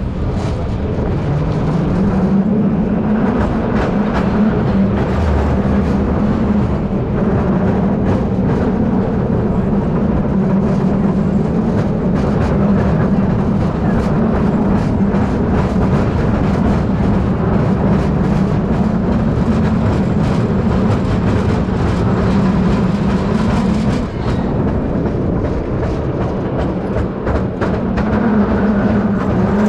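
1896 single-truck streetcar running along the track, with a steady low hum from its motors and a rumbling ride, wheels clicking over the rails. The hum drops away about three-quarters of the way through and picks up again near the end.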